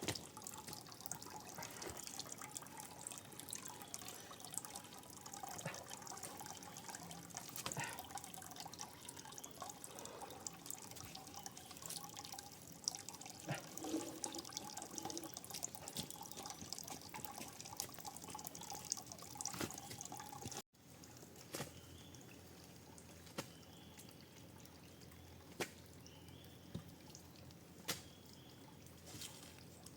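Faint dripping and trickling water with scattered small clicks and knocks. The sound drops abruptly about two-thirds of the way through, leaving only a few isolated clicks.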